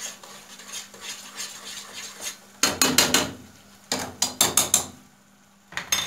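Metal spoon stirring and scraping onions fried with tomato-pepper paste in a frying pan, with two runs of loud clinks of the spoon against the pan about two and a half and four seconds in. Near the end the spoon clatters once as it is set down on the spoon rest.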